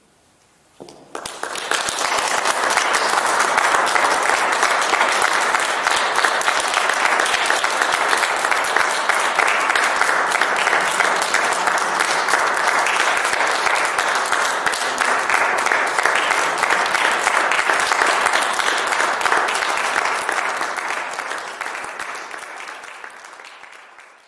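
Audience applauding: the clapping starts suddenly about a second in, holds steady and dies away near the end.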